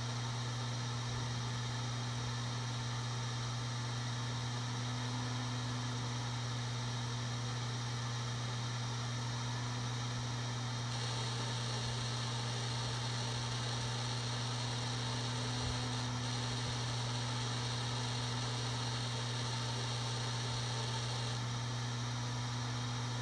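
Seagate Barracuda 7200.10 (ST3250310AS) hard drive spinning at 7200 RPM: a steady low hum. A faint higher hiss joins about eleven seconds in and drops away near the end.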